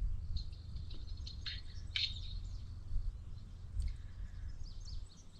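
Birds chirping: many short, high chirps and quick rising and falling calls scattered throughout, over a steady low rumble.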